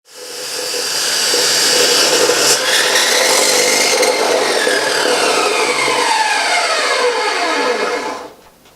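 A chop saw running and cutting. Its whine falls steadily in pitch over the last few seconds as the blade slows, and the sound cuts off about eight seconds in.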